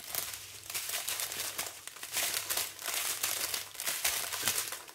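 Small plastic bags of diamond painting drills crinkling as they are rummaged through and moved about by hand, an irregular rustle that comes and goes.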